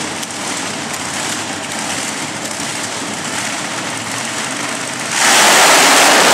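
Monster truck engines running with a steady rumble, then about five seconds in a sudden, much louder burst of engine noise as a truck revs hard at the start of its run.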